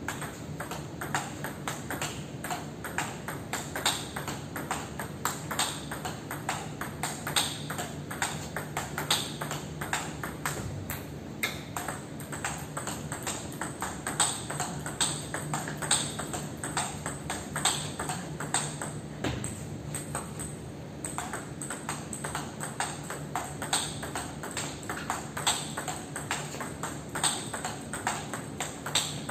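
Table tennis rallies: the plastic ball clicks sharply off rubber-faced wooden bats and bounces on the table in quick succession, several hits a second with a brief lull part way through.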